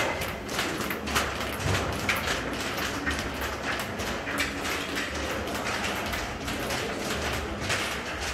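Footsteps of a group of people walking on a hard corridor floor: many irregular steps overlapping.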